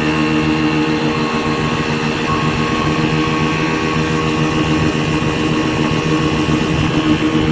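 1978 Chrysler 15 hp two-stroke outboard motor running steadily at constant speed, driving a boat under way.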